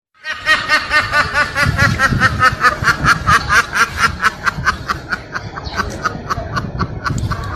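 Rapid, high-pitched laughter: a long unbroken run of short 'he-he' bursts, about five a second, growing fainter in the last couple of seconds.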